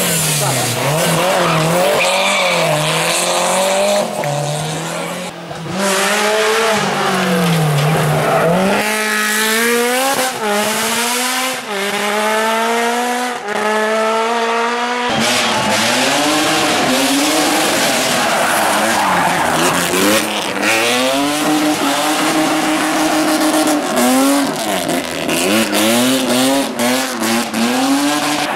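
Rally car engine revving hard, its pitch climbing and dropping again and again through gear changes, with a quick run of rising revs and shifts in the middle.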